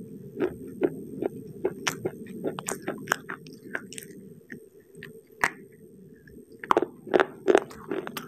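Close-miked crunching and chewing of a dry, crisp cookie: sharp crunches at an uneven pace, thinning out in the middle and coming louder again over the last second and a half.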